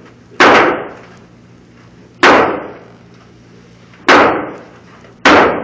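Four gunshots from firearms at a shooting range, each sharp crack followed by a short echoing decay. The shots come about two seconds apart, the last two a little closer.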